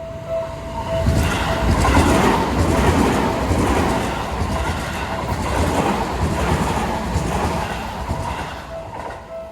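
A Seibu train passes close through a Japanese railroad crossing. Its wheels clatter rhythmically over the rail joints, the sound swelling about a second in and fading near the end. The crossing's electronic warning bell rings in steady pulses at the start and comes back through as the train fades.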